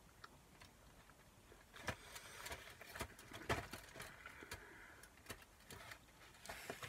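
Faint handling noise from a cardboard chocolate Advent calendar: scattered light clicks and soft rustling from about two seconds in.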